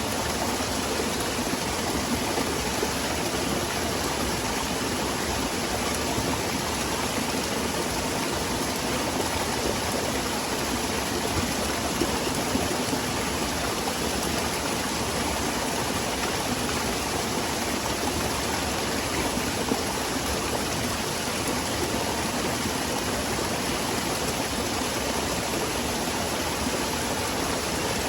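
Small waterfall splashing into a forest stream, a steady rushing wash of water that holds even throughout.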